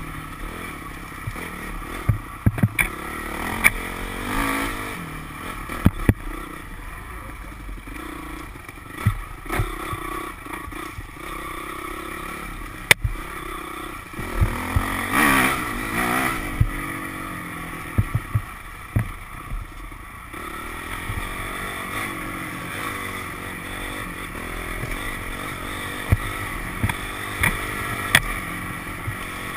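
Dirt bike engine running and revving up and down on a rough trail, with a louder burst of revving about halfway through. Frequent sharp knocks and clatter come from riding over bumps.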